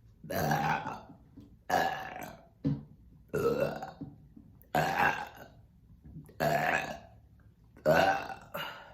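A woman burping loudly again and again, brought on by gulping carbonated orange soda: eight burps about a second or so apart, six long drawn-out ones and two short ones.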